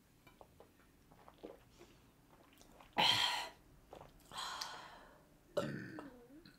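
Faint small clicks, then sounds from a person's mouth and throat: a sharp, loud breathy burst like a cough about three seconds in, a softer breathy burst after it, and a short voiced sound near the end.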